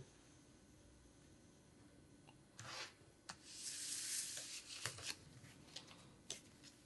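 Faint rustling and rubbing of paper letters being handled. A short rustle comes about two and a half seconds in and a longer one around four seconds, followed by a few light taps and clicks.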